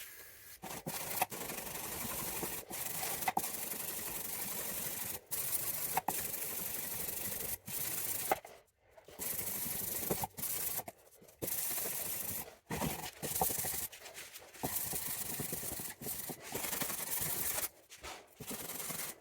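Hand block sanding of dry, cured filler on a fibreglass side-skirt repair: a steady scratching rasp of abrasive paper in runs of a second or few, broken by short pauses.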